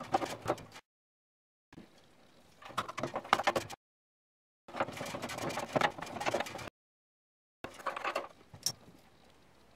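Clicks, taps and scraping of metal furnace parts and wiring being handled, in three or four short stretches broken by abrupt cuts to dead silence.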